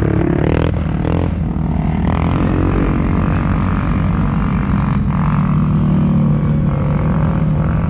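ATV engines running on a trail: a steady, loud low drone that rises and falls a little with the throttle, with a short knock about a second in.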